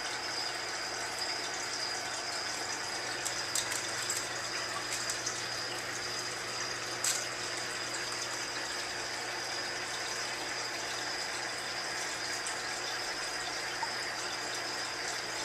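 Aquarium water pump running, with a steady rush of moving water over a low hum and a thin steady high whine. A few faint clicks come about four and seven seconds in.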